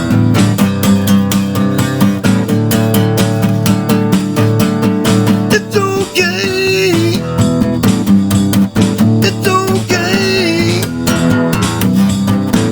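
Acoustic guitar strummed in a steady rhythm, an instrumental passage between sung lines, with a wavering melodic line rising over it twice.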